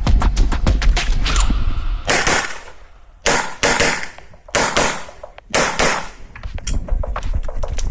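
A string of pistol shots, several coming in quick pairs a fraction of a second apart, each a sharp crack with a short ringing tail, fired while a competitor shoots an IPSC handgun stage.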